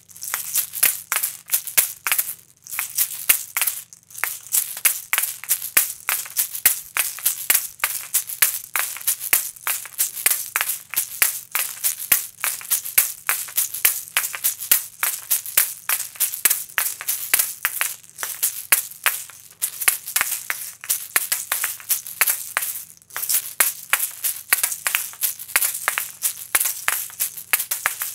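Asalato (kashaka) shakers, pairs of seed-filled shells joined by a cord, swung so the shells rattle and clack together in a fast continuous rhythm, with a few brief pauses.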